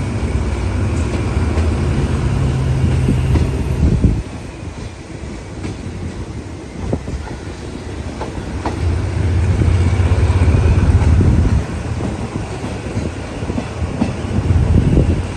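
Passenger train running on the track: a steady low rumble that swells loud for the first few seconds and again past the middle, with a few sharp clicks of the wheels over rail joints.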